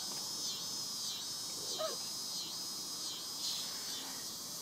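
Cicadas buzzing in the trees: a high, steady drone that pulses in and out about every half second.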